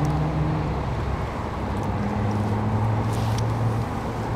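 Steady low hum of an idling engine, with a brief soft rustle about three seconds in.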